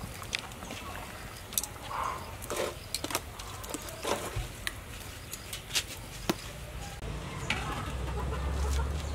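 Sharp scattered clicks and taps of a metal ladle and wire strainer working a pig's head in a large metal wok of boiling water, with chickens clucking in the background. A low rumble comes in about seven seconds in.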